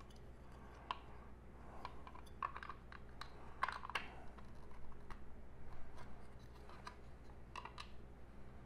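Faint, scattered light clicks and taps of small plastic stand pieces being handled, coming at irregular intervals, loudest around the middle.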